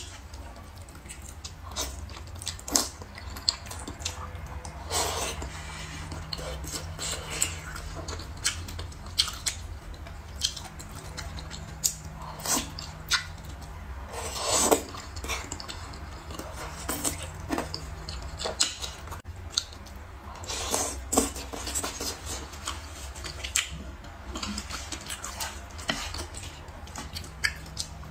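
A person eating close to the microphone: chewing and biting, with frequent short sharp clicks of utensils against dishes, over a steady low hum.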